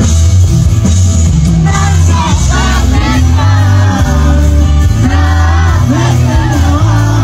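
Loud live band music with a singer's voice over heavy bass.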